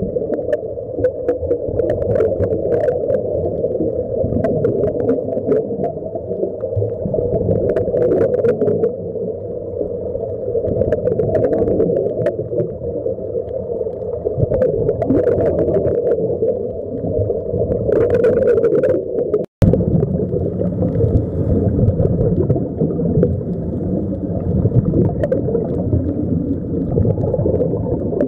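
Muffled underwater rumble with bubbling and scattered clicks, heard through an underwater camera housing, from air streaming out of sea walker helmets. The sound cuts out for a moment about two-thirds of the way through.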